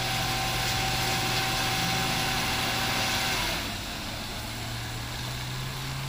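Heavy truck engine working up a steep hairpin bend: a steady low hum with a hissing edge and a faint steady whine, which drop away about three and a half seconds in. Near the end the engine note slowly rises in pitch.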